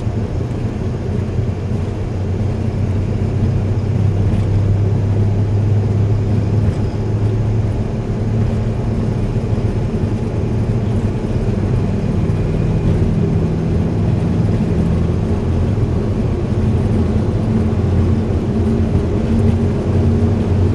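Boeing 737-200 flight-deck noise while taxiing: a steady low drone from its Pratt & Whitney JT8D turbofans and airflow, with several held low hum tones under it.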